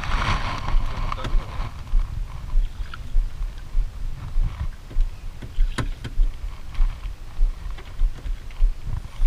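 Low, regular thudding aboard a small outrigger fishing boat at sea, about two beats a second, with a brief hiss at the start and a sharp click about six seconds in.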